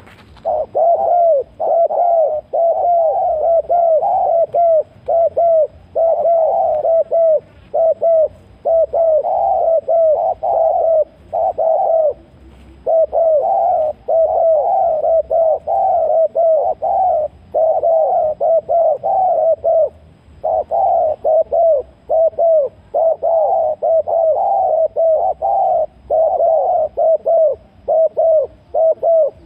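Spotted doves cooing: dense, near-unbroken runs of short low coo notes, broken by brief pauses.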